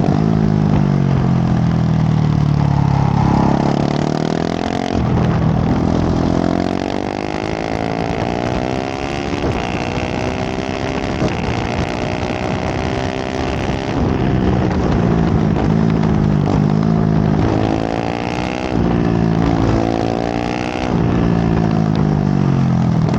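KTM 690 SMC R's single-cylinder LC4 engine through a full LeoVince exhaust, ridden at full throttle. The pitch falls off at first, then climbs and drops back repeatedly as it is run up through the gears.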